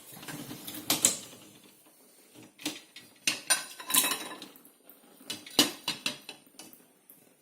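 Dishes clinking and knocking together as a dishwasher is unloaded: a run of separate sharp clatters, loudest about a second in, around four seconds and just before six seconds.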